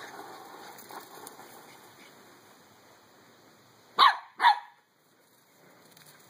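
Three-month-old Pembroke Welsh Corgi puppy barking twice, two short high-pitched yaps about half a second apart about four seconds in.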